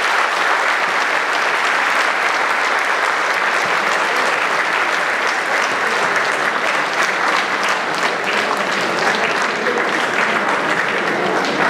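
Audience applauding steadily with dense, continuous clapping.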